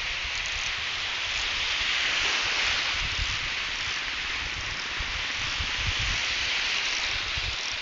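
Ocean surf breaking and washing in a steady hiss, with wind buffeting the microphone in irregular low gusts.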